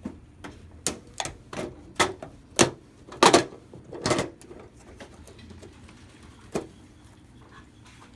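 Old fluorescent lamp sockets being popped loose from a light fixture: a run of irregular sharp clicks and knocks of plastic on sheet metal, loudest about three and four seconds in, with a last single click past six seconds.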